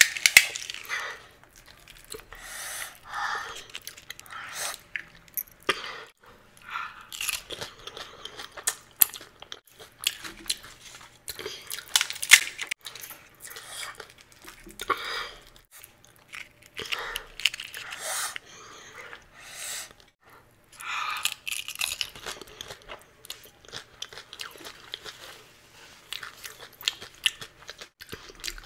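Close-miked eating of pani puri: crisp hollow puri shells cracking as they are bitten, then wet chewing, in irregular bursts of crunches.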